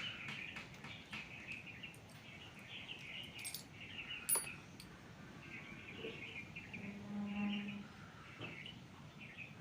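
Small birds chirping repeatedly in the background, with a single light click about four seconds in.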